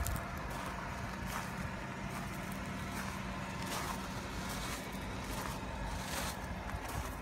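Footsteps crunching on gravel, about one or two steps a second, over the steady low hum of a car engine idling.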